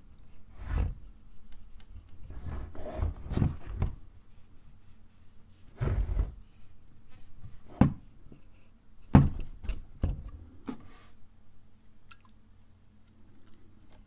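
Handling noise from a Pentax 67 camera body being held, shifted on a wooden tabletop and scrubbed with a cotton swab: irregular bumps, knocks and rubbing, loudest about nine seconds in.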